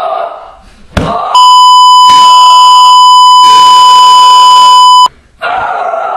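Censor bleep: a loud, steady 1 kHz beep held for nearly four seconds over an angry outburst. Shouted voice is heard briefly before it and again after it cuts off.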